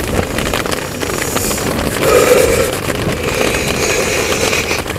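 Wind buffeting the microphone, a steady rushing noise that swells about two seconds in.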